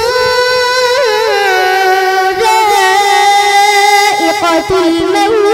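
A boy's voice reciting the Quran in Arabic in the melodic tajweed style, drawing out long held notes with rippling ornaments and stepping down in pitch near the end.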